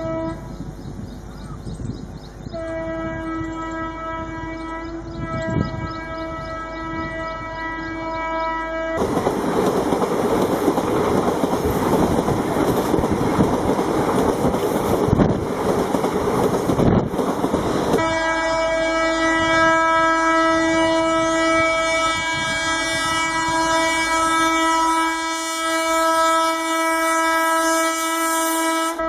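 Electric locomotive's horn sounding one long, steady note, with a short break about two seconds in, as an express train approaches and speeds past. About nine seconds in, a loud rush of the passing train drowns the horn for around nine seconds. The horn then carries on over the rattle of the coaches going by.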